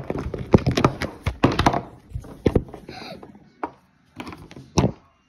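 Hard plastic animal figurines knocking and clacking against a wooden tabletop in a play fight: a fast flurry of knocks over the first two seconds, then a few single knocks.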